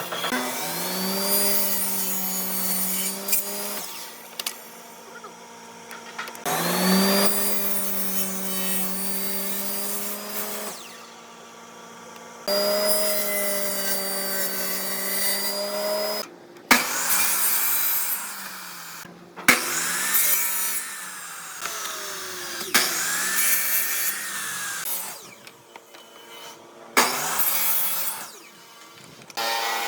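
An electric power tool working wood, its motor running in several stretches of a few seconds each. The pitch rises as the motor spins up and sags at moments when the tool bites into the wood.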